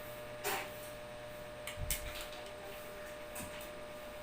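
Toys being rummaged through during a search: a few short clicks and knocks, about half a second in, around two seconds and near three and a half seconds, over a steady electrical hum.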